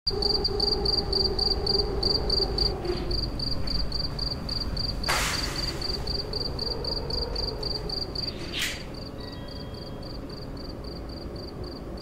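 Cricket chirping steadily, about three chirps a second, over a low rumble. Two brief swishes cut across it, about five seconds in and again near eight and a half seconds.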